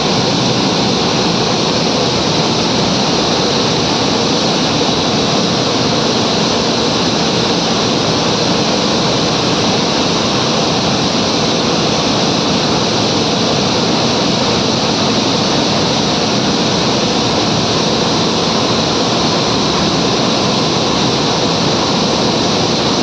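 Loud, steady, unchanging roar of running flour-mill machinery.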